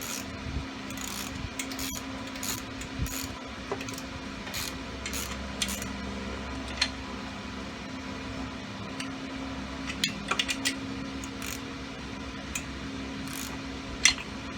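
Scattered metallic clicks and clinks of a hand ratchet and bolts as the cylinder head bolts are run down, with a quick run of clicks about ten seconds in and a sharper click near the end. A steady low hum runs underneath.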